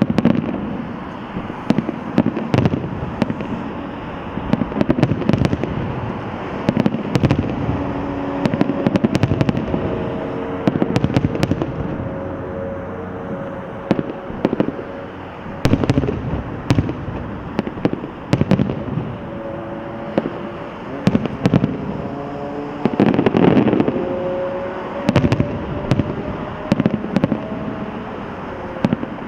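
Aerial fireworks show: shells bursting in a rapid, irregular series of bangs and crackles over a constant rumble, densest and loudest about 23 seconds in.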